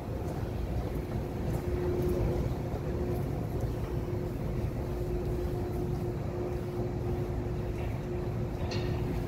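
Metro station concourse ambience: a steady low mechanical rumble with a constant hum running through it, from the station's machinery and ventilation. A brief faint higher sound comes near the end.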